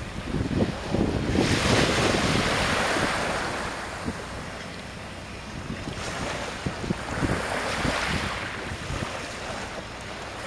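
Gusty wind buffeting the microphone, swelling strongly about a second and a half in and again around eight seconds, with low rumbling thumps between gusts.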